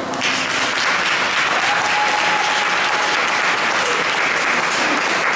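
Audience applauding, coming in as the program music stops.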